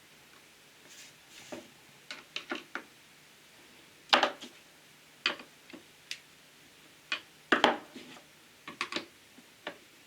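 Irregular clicks, taps and clatters of a power jigsaw's plastic housing and small parts being handled and worked on by hand, with two louder knocks, about four seconds in and again past the middle.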